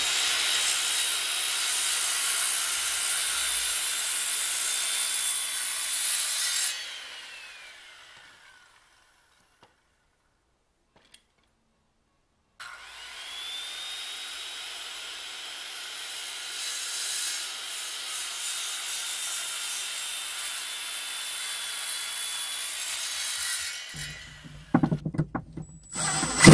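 Circular saw cutting through a wooden post: its high motor whine runs with the cut, then the trigger is released and the blade winds down with a falling pitch. After a pause the saw starts again with a rising whine and makes a second, longer cut before winding down. Near the end come a few short, loud knocks.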